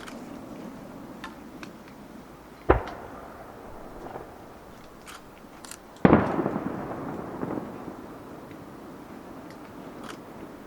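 Aerial firework shells bursting: a sharp bang about two and a half seconds in, then a louder boom about six seconds in that rumbles away over a second or two, with a few faint pops in between.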